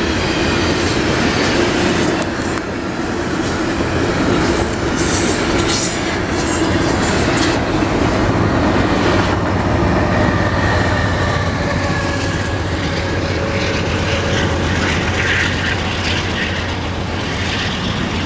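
Double-stack container train's well cars rolling past on steel rails: a steady rumble with clattering wheels, and a faint high whine from the wheels in the second half.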